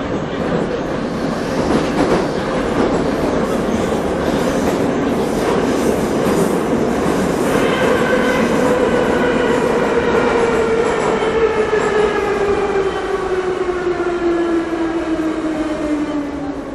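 Moscow Metro train running, heard from inside the car: a steady rumble of wheels on the rails. About halfway through, an electric traction-motor whine comes in as several tones together and falls steadily in pitch as the train slows down.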